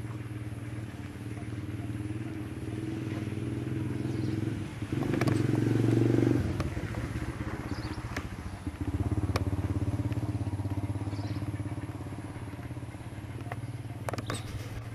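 A motor vehicle engine running steadily with a low pulsing hum. It grows louder about five seconds in and again around nine seconds, then eases off, with a few light clicks near the end.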